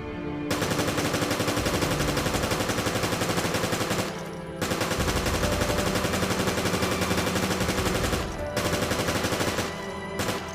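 MP5 submachine gun firing fully automatic in three long bursts: two of about three and a half seconds each, then a shorter one of about a second, with brief pauses between.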